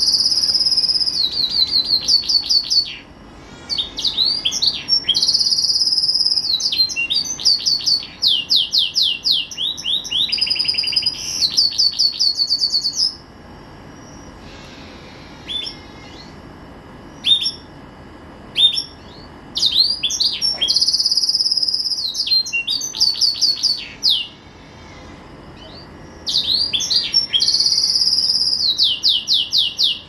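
Green domestic canary singing: long phrases of rapid trills and rolls, each lasting several seconds. There is a pause of a few seconds about halfway through, broken only by a few single notes, and then more trilled phrases.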